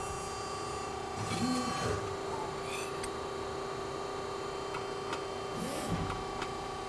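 Steady multi-tone hum of a CNC hydraulic press brake standing ready between bends, with two short louder noises about a second and a half in and near the end as the stainless steel strip is set against the backgauge.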